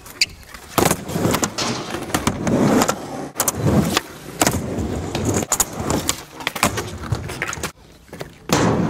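Skateboard wheels rolling over concrete, with several sharp clacks of the board's tail popping and the deck landing; the rolling gets loud again near the end after a short lull.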